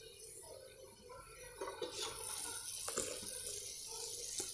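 Chicken simmering faintly in its own juices in a covered aluminium kadai on a gas burner, a low watery hiss. A light clink sounds near the end as the lid is lifted.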